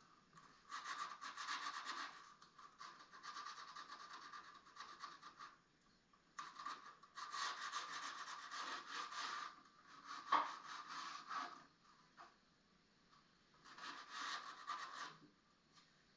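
Sandpaper rubbed by hand over the wood of an old fireplace mantle in quick back-and-forth strokes, in five spells with short pauses between, muffled. A single sharp knock about ten seconds in.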